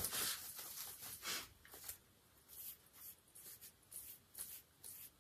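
Faint, intermittent rustling of a curly synthetic wig's heat-friendly fibre being handled and fluffed by hand.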